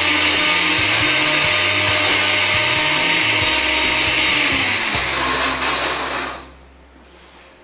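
Blender running at full speed with pieces of a Nokia 3310 phone in the jar, then switched off about six seconds in, the noise falling away quickly.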